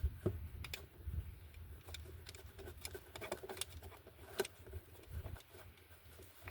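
Faint scattered clicks and light taps of a screw being fitted and started by hand into a plastic engine cover.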